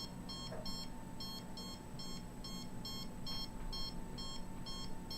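Handheld RF/microwave radiation detector sounding its alarm: short, high electronic beeps repeating about three times a second, unevenly spaced. It is the meter's high-reading alarm, set off by readings over a thousand.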